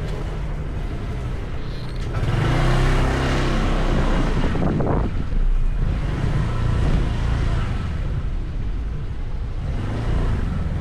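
Vehicle engines and street traffic running steadily, growing louder about two seconds in.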